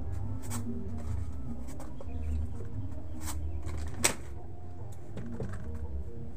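Goods being moved and stacked on shop shelves: plastic cooking-oil bottles and packets rustling and knocking, with a sharp knock about four seconds in.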